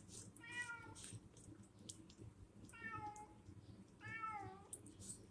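Domestic cat meowing three short times: once near the start and twice close together past the middle.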